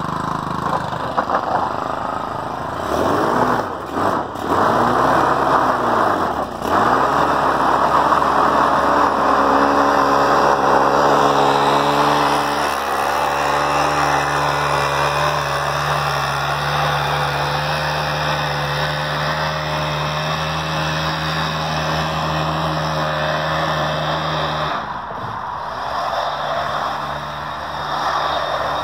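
Stihl KM 110R KombiMotor's small two-stroke engine driving a paddle-wheel power broom that sweeps wet snow off a concrete walkway. The engine speed dips and picks up again twice early on, then holds a steady high pitch, and drops to a lower speed about 25 seconds in.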